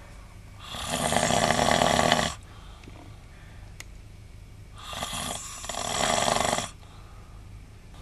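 A man snoring: two long snores, each nearly two seconds, about four seconds apart, over a steady low hum.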